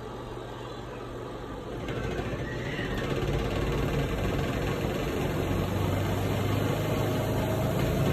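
Spin dryer of a FRIFER compact twin-tub washer spinning a load of four large wet towels: a steady motor hum and rumble that gets louder about two seconds in, then holds steady.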